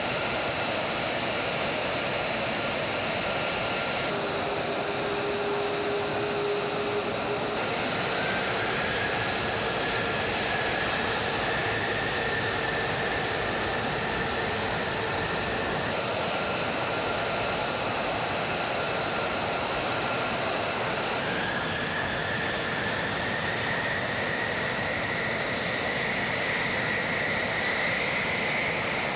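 F-35A Lightning II's Pratt & Whitney F135 turbofan running on the ground: a steady rushing noise with a high whine. A second whine rises slowly in pitch from about eight seconds in, and again from about twenty-one seconds in, and the sound shifts abruptly a few times.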